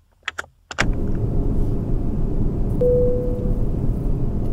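A few short clicks, then the steady loud rumble of a jet airliner's cabin as the engines run for takeoff. About two seconds in, a single clear tone sounds and fades away.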